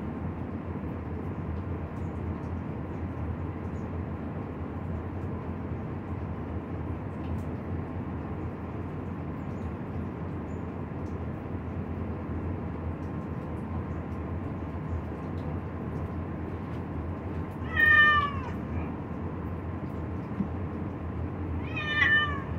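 Cat meowing twice, about four seconds apart in the second half, each a short call that falls in pitch, over a steady background hiss.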